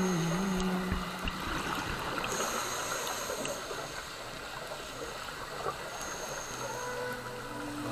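Steady, muffled water noise picked up by an underwater camera, with a few faint clicks.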